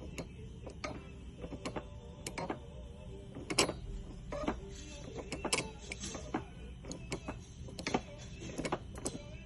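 Broken front universal joint on the front driveshaft of a BMW 328xi (E90) squeaking and clicking irregularly, about two sharp squeaks a second, over a steady low rumble: the sign of a failed U-joint.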